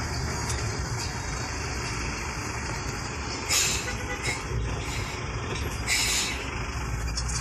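Steady engine and road noise heard from inside a moving vehicle's cab, with two short bursts of hiss about three and a half and six seconds in.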